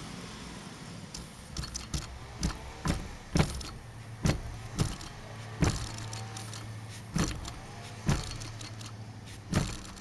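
Small toy steam engine chuffing unevenly as it struggles to get going, sharp steam puffs coming about twice a second at first and then further apart, over a steady low hum. The engine is sluggish, acting as if gummed up with something.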